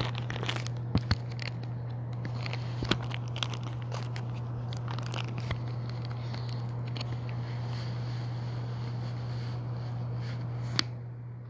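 Handling noise of a phone camera being moved and set in place: scattered clicks and rustling over a low steady hum. The rustling stops after a final sharp click near the end, leaving only the hum.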